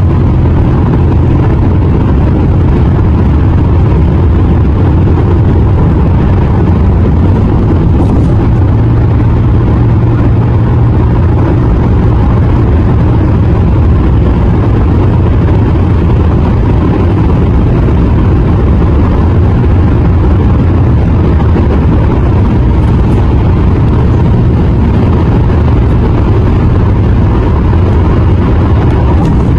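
Steady road noise of a car driving at highway speed: a constant low hum with a rush of tyre and wind noise, unchanging throughout.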